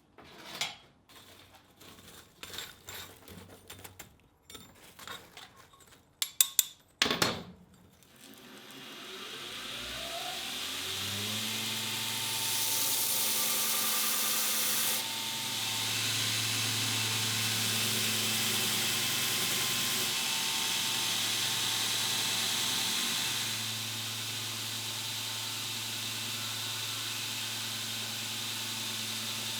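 A few clicks and knocks, then an electric power tool motor spins up about eight seconds in and runs steadily with a hum and a hiss.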